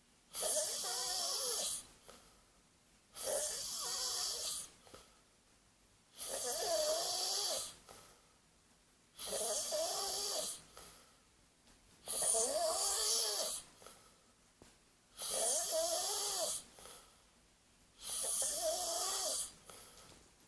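Heavy snoring in a steady rhythm: seven snores about three seconds apart, each lasting about a second and a half with a wavering pitched tone and a breathy hiss, separated by quiet pauses.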